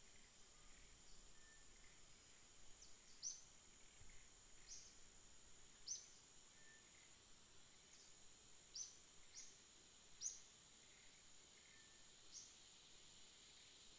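Faint outdoor ambience: a steady high-pitched insect drone, with short, high, downward chirps scattered irregularly through it, the loudest about a third of the way in and again near two-thirds.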